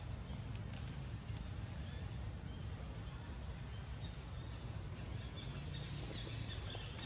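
Steady forest ambience: a continuous high-pitched insect drone over a low rumble, with no distinct events.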